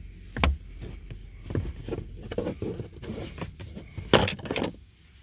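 Flathead screwdriver prying at the plastic dashboard air vent of a 2015+ Subaru WRX: irregular scraping and clicking of the metal tip against the plastic trim, with a louder burst of clicks and rattling about four seconds in as the vent is worked loose.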